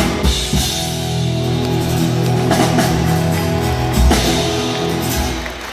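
Live country band playing: electric and acoustic guitars and bass ring out on sustained chords over drum and cymbal hits, the sound falling away near the end.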